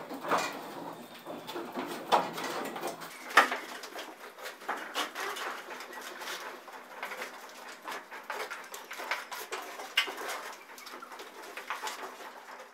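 Irregular scrapes and taps of hand tools working wet plaster on a gypsum ceiling.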